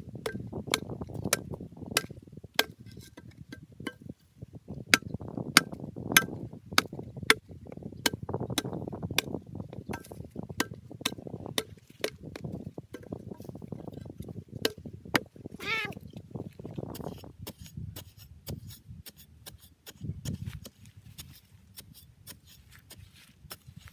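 Steady chopping: sharp knocks about one and a half a second over a low rustling rumble, with one brief wavering cry about sixteen seconds in.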